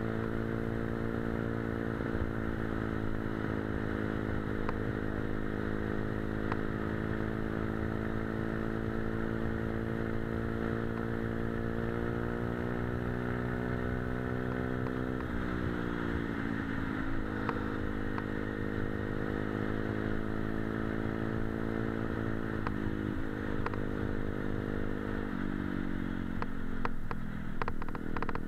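Motorcycle engine running at steady cruising revs, heard from on the bike, with wind noise over the microphone. The engine note drops about halfway through, and again twice near the end as the throttle eases off.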